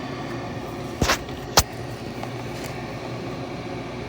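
Chulux K-cup single-serve coffee maker heating water before it brews: a steady hum and rush, with two short sharp pops or clicks a little after a second in.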